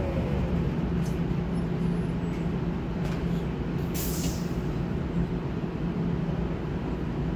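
Trolleybus heard from inside the cabin: a steady electrical hum with running noise as it moves slowly in traffic. A short hiss of air comes about four seconds in.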